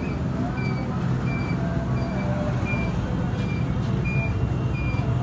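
A small single-cylinder motorcycle engine running steadily, with a short high chirp repeating more than once a second over it.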